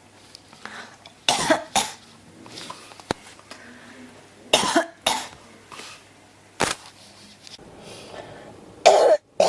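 A person coughing repeatedly: about six separate coughs, several in quick pairs, spaced a second or two apart, with the loudest one near the end.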